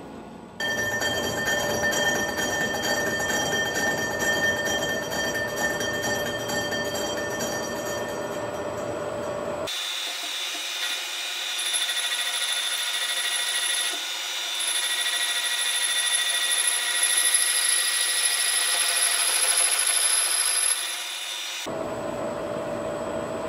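Metal lathe running and turning the rim of a welded aluminium alloy wheel, with steady high ringing tones over the noise of the cut. About ten seconds in the low rumble drops out abruptly and a thinner, higher whistle takes over. The earlier fuller sound returns near the end.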